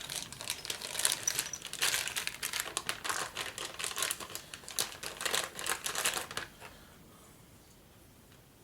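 Plastic packaging bags crinkling and rustling in the hands, with small clicks and crackles as mount parts are handled, stopping about six and a half seconds in.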